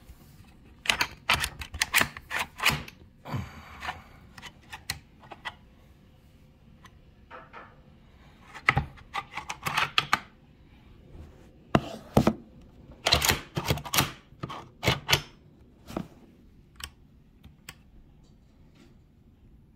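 Shotgun being handled by hand: bursts of sharp metallic clicks and clacks from its action and loading-port carrier, in three clusters with scattered single clicks near the end.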